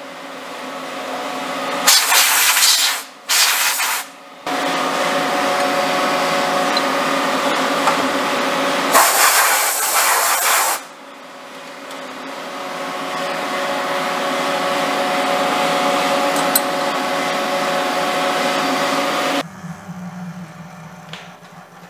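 Compressed-air blow gun blasting metal chips out of a milling-machine vise: three bursts of hissing air, two close together about two seconds in and a longer one around nine seconds in. A steady machine hum with several tones runs underneath, grows louder, and stops abruptly near the end.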